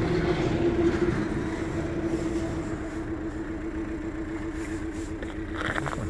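A 2018 Chevrolet Cruze's 1.4-litre turbocharged four-cylinder engine idling with a misfire, because the cylinder 1 fuel injector is not firing.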